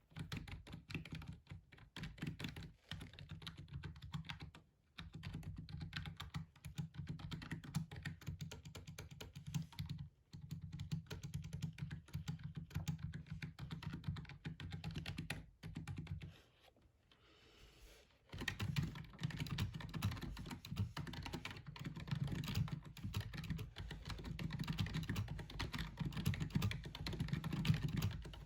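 Rapid, continuous typing on a gaming keyboard, the keys clicking densely, with a break of about two seconds a little past the middle before the typing resumes.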